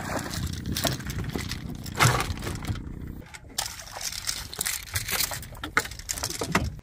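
A hooked king mackerel splashing and thrashing at the surface and being swung aboard a wooden boat, with irregular knocks and crackles throughout. A low steady hum underneath stops about three seconds in.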